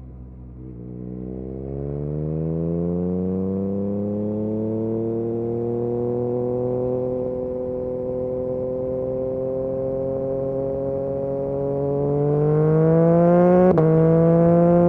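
Yamaha MT-09 SP's three-cylinder engine through an Akrapovic exhaust under acceleration. The pitch rises over the first few seconds, holds steady, then climbs again. Near the end it drops sharply with a click as the bike shifts up a gear.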